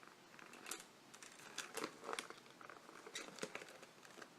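Faint paper rustling and a few soft clicks as the glossy pages of an album photobook are turned and handled.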